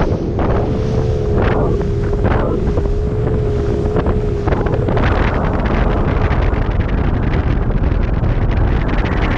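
Bass boat running on the water under outboard power, with a steady engine whine and heavy wind buffeting on the microphone; the whine drops out about halfway in, leaving wind and water noise, with a few slaps in the first half.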